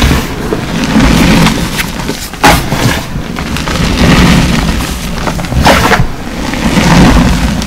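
Reformed gym chalk being squeezed and crumbled by hand: a continuous gritty crunching, with a sharper crack a little over two seconds in and another near six seconds.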